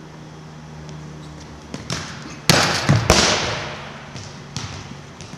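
A volleyball being struck and hitting the hardwood gym floor: two loud slaps about half a second apart, halfway through, ringing out with a long hall echo, among a few lighter ball taps.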